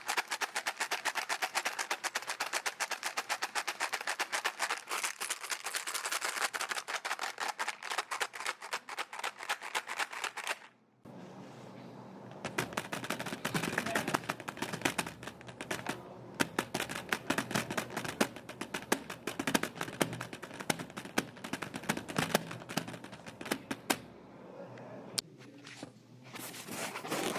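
Rapid, dense sharp clicking for about eleven seconds, then a brief pause, then irregular clicks and taps over a low steady background.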